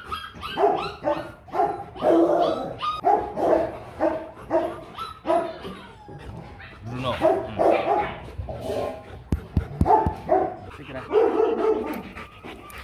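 Rottweilers barking over and over in quick runs of barks, with a short lull about six seconds in. A few low thumps around nine seconds.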